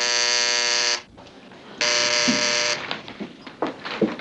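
Apartment door buzzer sounding twice, two steady buzzes of about a second each with a short gap between them: a visitor ringing at the door.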